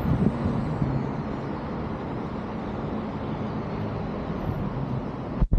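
Steady city traffic noise rising from a busy multi-lane road below, a dense low rumble of cars and buses. It cuts off suddenly near the end.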